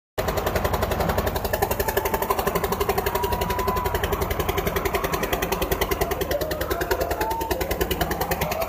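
Old Eicher tractor's diesel engine labouring at full load in a tug-of-war, its exhaust beating fast and evenly.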